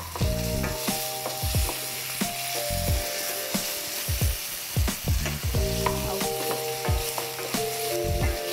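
Chopped onions and ginger-garlic paste sizzling in oil in a stainless steel frying pan on low heat, stirred and scraped with a spatula in irregular strokes.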